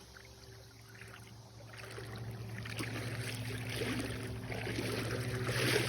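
Creek water running and trickling, building louder after about two seconds, over a steady low hum.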